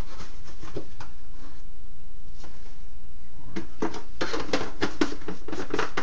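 A spoon scraping and scooping borax powder out of its container: a few faint clicks, then a quick run of scratchy scrapes and clicks from about halfway through, over a steady low hum.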